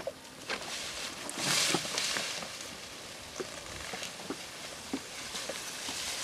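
A canoe paddle stroke: water swishes about one and a half seconds in, with scattered light knocks and clicks around it.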